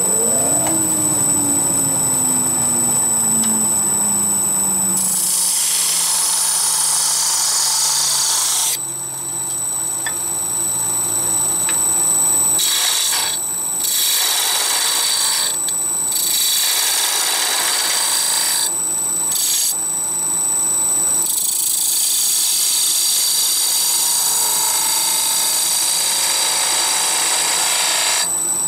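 Wood lathe running with a steady high whine while a turning tool cuts the spinning top body, giving several passes of hissing, scraping noise broken by short pauses. Over the first dozen seconds the lathe's hum slowly falls in pitch.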